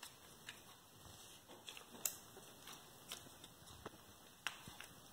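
Faint, scattered clicks and taps of small plastic parts being handled and fitted together as a water flosser is reassembled, one sharper click about two seconds in.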